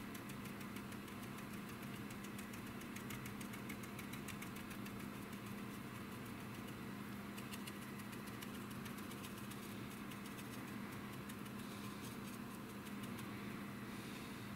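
Steady low machine hum, with fast, faint scratchy ticking from a stiff brush dabbing and scrubbing weathering colour onto a plastic model's surface.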